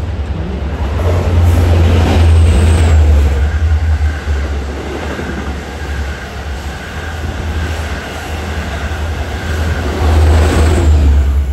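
Long Island Rail Road diesel push-pull train of bilevel coaches passing close along the platform, a heavy low rumble of wheels on rail with a steady high whine. It is loudest as the leading car arrives about a second in and again near the end as the locomotive at the rear goes by.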